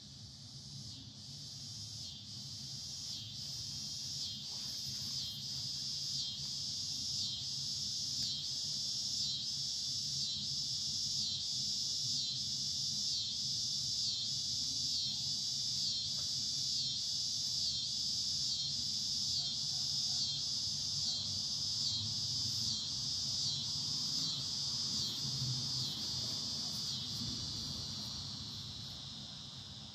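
A high-pitched insect buzzing call, pulsing steadily, that swells up over the first several seconds, holds, and fades away near the end.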